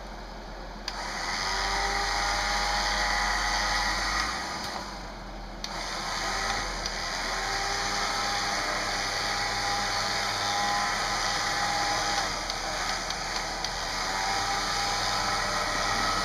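Recon 10.5K electric winch pulling in its line under load, its motor whining with a steady pitch that wavers slightly. It stops for about a second a little over four seconds in, then pulls again.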